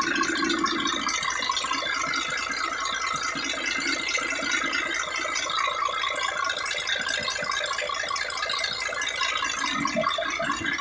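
Mercedes-Benz Actros 1844 truck's diesel engine running with a steady, dense rattling clatter.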